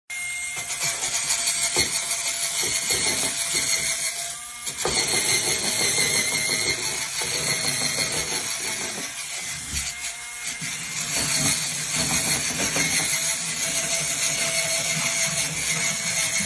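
Cordless electric spin scrubber running, its spinning brush head scrubbing tile: a steady motor hum under a scratchy hiss of bristles, dipping briefly twice.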